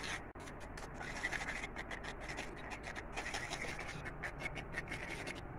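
A spoon scraping and stirring thick mango pulp through a metal mesh sieve to strain it, in a run of quick, irregular scrapes.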